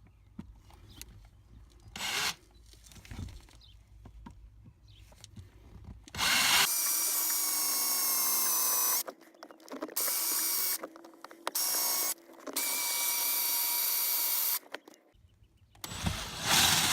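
Electric drill with a step drill bit boring through the metal brake pedal arm. It starts about six seconds in and runs in several bursts with short stops, the motor whining steadily, then starts again near the end.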